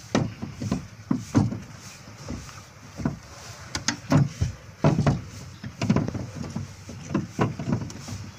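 Irregular clanks, knocks and clicks of hand tools and metal parts being handled during repair work, some a second or so apart, a few in quick pairs.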